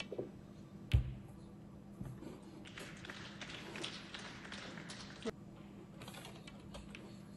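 Snooker balls on the table at low level: a sharp knock about a second in, then a smaller click a little after five seconds, with faint tapping and rustling between them.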